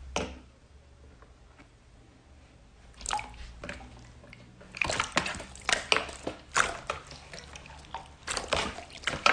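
Slime being squeezed and poked, giving wet, sticky clicks and pops. They are sparse at first and come thick and fast from about five seconds in.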